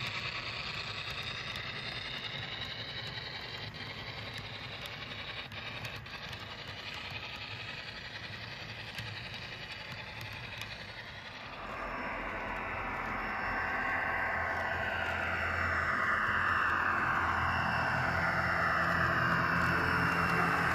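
HO scale model trains running on track, with light clicks from the wheels and a steady rumble. About twelve seconds in it grows louder as a Pan Am diesel lash-up and its freight train roll close by.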